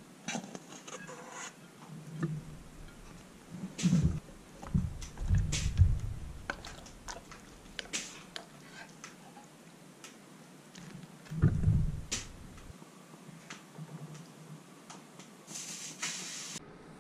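Dishing-up clatter: a serving spoon scraping and tapping as rice is scooped from a frying pan onto a ceramic plate and ribs in sauce are spooned from a pot, with scattered clicks of metal on crockery and a few dull thumps.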